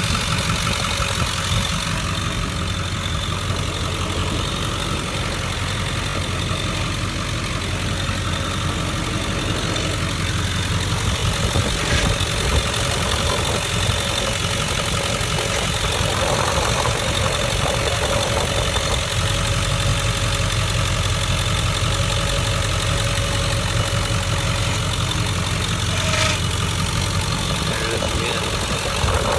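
Ford 7.3 Powerstroke turbo-diesel V8 idling steadily, with a grinding noise that the owner thinks comes from the belts.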